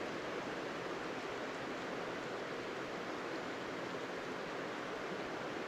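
Steady, even wash of rain falling on a slow river and the streamside foliage, mixed with the sound of flowing water.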